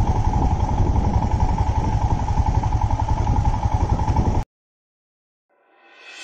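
Royal Enfield Himalayan's 411 cc single-cylinder engine running steadily under way, cut off abruptly about four and a half seconds in. After a second of silence, music fades in near the end.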